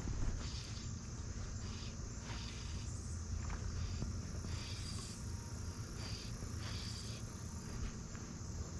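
Evening insect chorus of crickets: a steady high-pitched trilling, with louder chirps coming and going over it, and a low rumble underneath.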